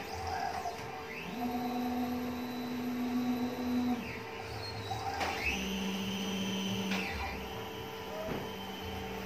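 Stepper motors of a homemade large-format CNC router whining as the machine's axes travel. There are several moves, each rising in pitch as it speeds up, holding a steady tone, then falling away as it slows, over a steady background hum.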